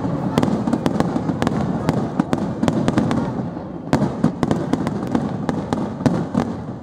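Aerial firework shells bursting in quick succession: a dense run of sharp bangs and crackles, several a second, over a continuous low rumble.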